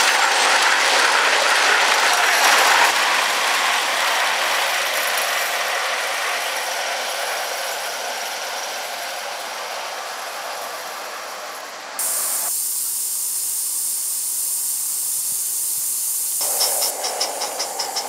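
Gauge 1 live-steam model of a BR Standard Class 4MT 2-6-4 tank locomotive running with its coaches: a steady hiss of steam mixed with the rattle of wheels on track, fading as the train draws away. After an abrupt change to a thinner high hiss, the locomotive's exhaust beats come in near the end as a rapid even chuffing, about seven beats a second, as it passes close.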